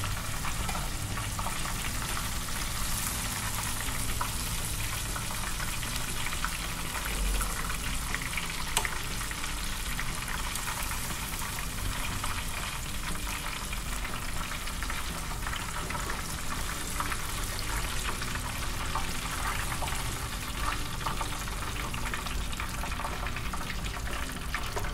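Breaded chicken drumsticks deep-frying in a pot of oil, the oil bubbling and sizzling steadily. The oil is held at a lower frying heat of about 300 °F so the pieces can fry longer without burning.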